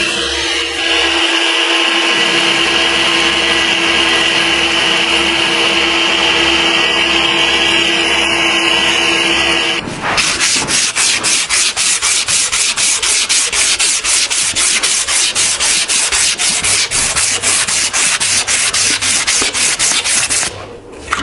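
A steel knife blade being abraded: first an electric sanding machine runs steadily against it for about ten seconds, then stops abruptly. After that the blade is rubbed back and forth by hand on an abrasive in quick even strokes, about four a second.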